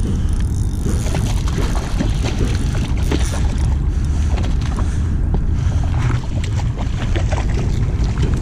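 Wind rumbling steadily on the microphone, with scattered light clicks over it.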